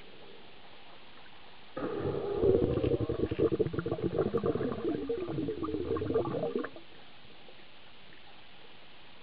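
A diver's exhaled air bubbling and gurgling for about five seconds. It starts about two seconds in and cuts off abruptly, heard muffled through a compact camera's underwater housing over a steady hiss.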